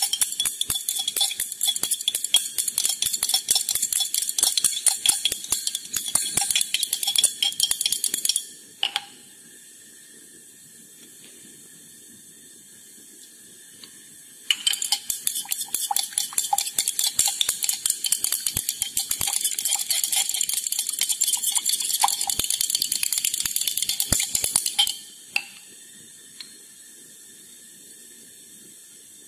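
A stirring rod rapidly clinking against the sides of a glass dish as a cold-cream emulsion (oil phase into water phase) is stirred vigorously. Two spells of fast clicking, the first about eight seconds, then a pause of about six seconds, then a second spell of about ten seconds.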